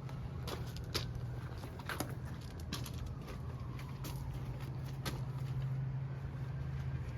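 A vehicle engine idling with a steady low hum, while scattered sharp clicks and light knocks sound over it.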